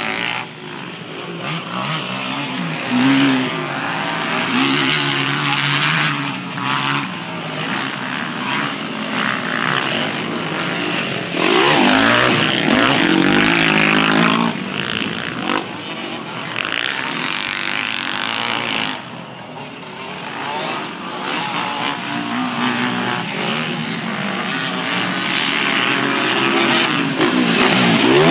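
Several motocross dirt bikes riding a track, their engines revving up and down with the throttle. One bike passes close and loudest about twelve seconds in, its pitch sweeping as it goes by, and another passes close near the end.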